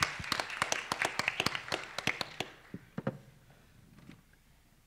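Audience applauding. The clapping thins to a few scattered claps about two and a half seconds in and stops about three seconds in.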